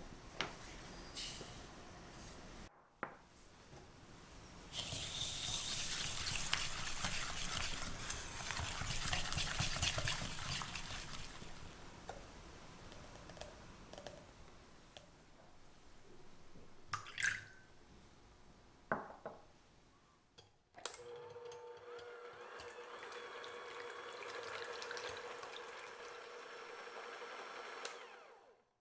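Egg yolks with sugar and vanilla whisked in a glass bowl for several seconds, with a few clinks of utensils against glass. In the last part, an electric hand mixer runs steadily with a low hum, whipping egg whites.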